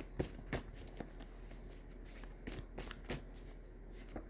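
Deck of tarot cards being shuffled by hand, a string of irregular quick flicks and snaps.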